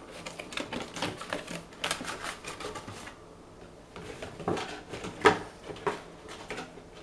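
Cardboard boxes being handled: an inner carton slid out of its outer box and its lid lifted, giving irregular scrapes, taps and knocks, the sharpest a single knock about five seconds in.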